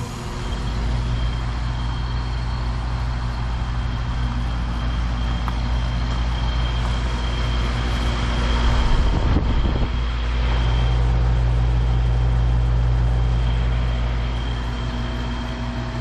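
2009 Lennox 13HPX 2-ton heat pump outdoor unit running, a steady low hum with a faint high whine over it. About ten seconds in, a brief rushing sound gives way to a louder hum.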